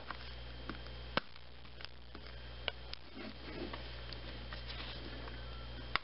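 A few sharp clicks and faint scratching as a Nexus 5 smartphone's plastic back cover is pried and pushed loose around its edge, its snap catches clicking free. The sharpest click comes about a second in, over a steady low hum.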